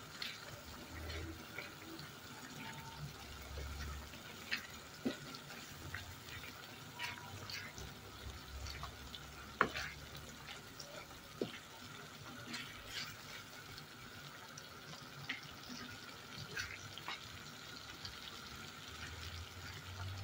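A wooden spatula stirring white beans in sauce in a pan, with soft scrapes and scattered light clicks over the faint sizzle and bubbling of the sauce cooking.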